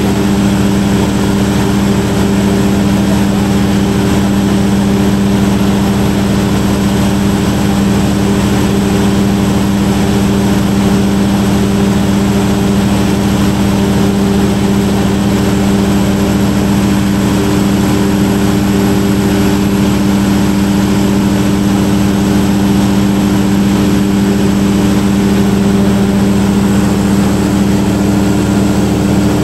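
Large 1250 kVA diesel generator set running steadily close by, a loud unchanging engine hum.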